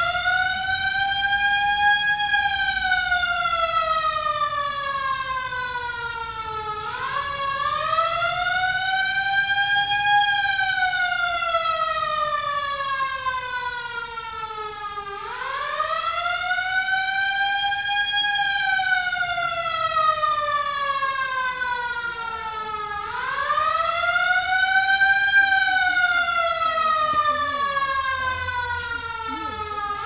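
Air-raid siren sounding the alert: one wailing tone that rises quickly and sinks slowly, about once every eight seconds, four times over. The rising-and-falling wail is the air-raid warning signal.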